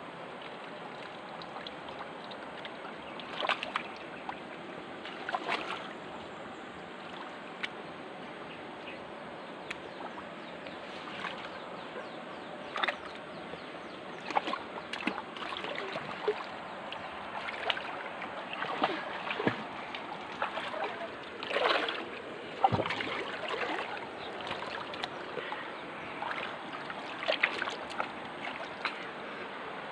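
River water flowing steadily, with irregular splashes and sloshes breaking through.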